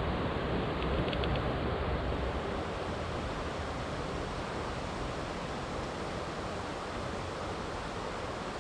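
Steady rush of water from a mountain creek below a waterfall, a constant hiss-like roar, a little louder at first; a few faint clicks about a second in.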